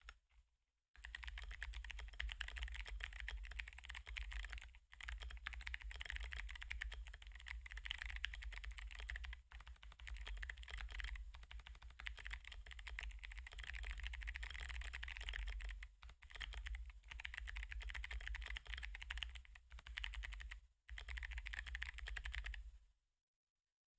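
Fast typing on a PLA60 60% mechanical keyboard with Kailh Box Jade clicky switches and XDA keycaps: a dense run of sharp key clicks, broken by brief pauses every few seconds, stopping about a second before the end.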